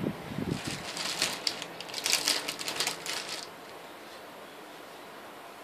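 A bag rustling and crinkling as squishies are rearranged inside it, stopping about three and a half seconds in.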